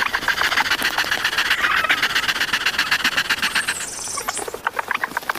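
Hens squawking and cackling in alarm as a dog chases them, a rapid, dense run of harsh calls with a few separate squawks near the end.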